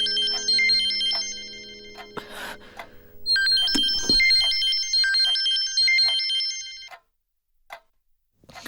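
A mobile phone's melodic ringtone plays a fast repeating run of electronic notes. It pauses about two seconds in, starts again, and cuts off sharply about seven seconds in. A soft knock sounds about four seconds in.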